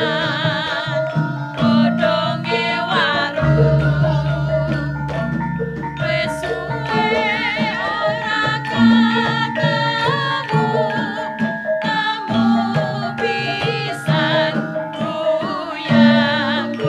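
Javanese gamelan ensemble playing, its bronze metallophones sounding steady ringing notes, with a voice singing over it with a wavering vibrato. A deep low tone rings under the ensemble for several seconds about a fifth of the way in.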